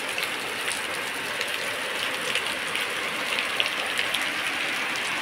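Heavy rain falling steadily, with scattered sharp drips and splashes within the even hiss.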